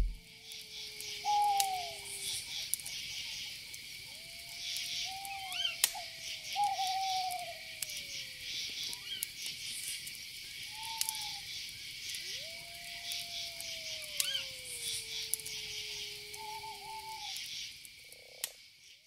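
Night ambience: a steady, high chorus of chirping insects such as crickets, pulsing throughout. Over it come scattered whistled animal calls that slide in pitch, the longest falling slowly over about three seconds.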